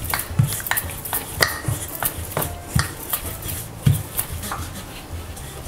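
Wooden rolling pin rolling out dough on a granite countertop, giving a run of irregular knocks and clicks about two to three a second that thin out near the end.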